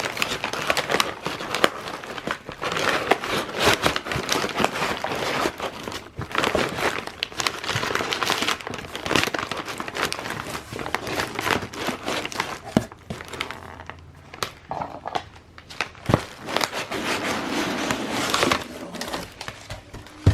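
Plastic packing material, bubble wrap among it, crinkling and rustling with many sharp irregular crackles as it is pulled from a plant shipping box.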